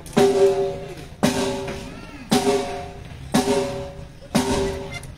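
One drum of a band's drum kit struck alone, about once a second, five even hits in all, each ringing with a clear pitch and fading before the next: a single drum being checked during a sound check.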